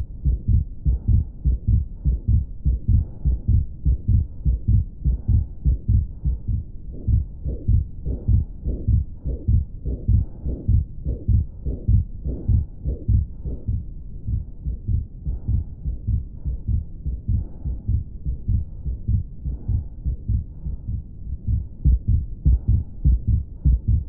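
Stethoscope recording of heart sounds: a regular, fairly fast heartbeat with a murmur heard between the beats.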